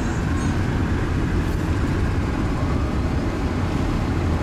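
Steady low rumble of road and engine noise from a moving vehicle, heard from inside it.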